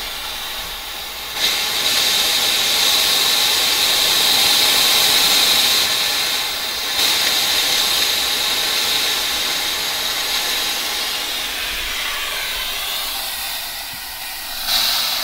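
High-pressure air venting from the bleed valve of an Air Venturi PCP air compressor into a towel after a fill, blowing out moisture and oil from the line: a loud hiss with a high whistle in it. It jumps louder about a second and a half in, fades slowly through the second half, and gives a short burst again near the end.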